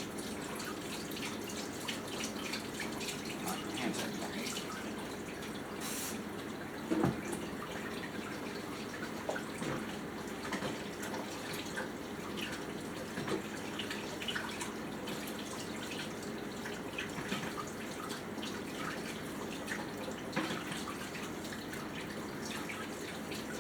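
Steady, water-like rushing noise with many small clicks and taps scattered through it, and one sharper knock about seven seconds in.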